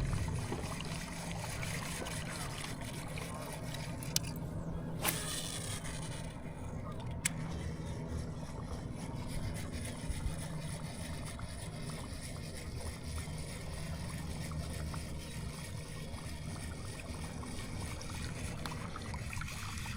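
Boat on open water: a steady low hum with water sloshing and trickling against the hull, and a few faint clicks.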